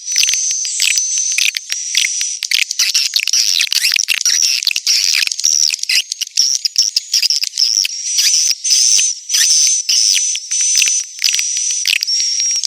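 Edible-nest swiftlets twittering in a dense, unbroken chatter of high chirps and clicks with a thin high trill through it. It is a swiftlet lure-call recording, played to draw swiftlets into a nesting house.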